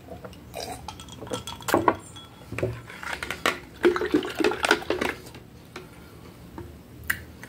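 Mealtime sounds: sips from a glass of juice and irregular clinks of the glass and a fork against a plate, quieter for the last couple of seconds.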